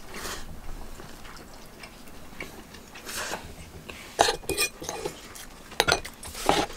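Soft eating sounds, then a metal fork clinking and clicking a few times against a plate in the second half.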